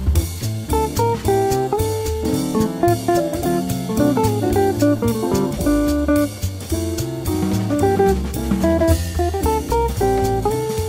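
Fast uptempo jazz background music, a quick run of short notes over a steady drum beat.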